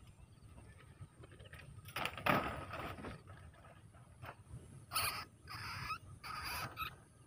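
Footsteps crunching and rustling through dry, burnt rice stubble, in a few uneven bursts. The loudest comes about two seconds in.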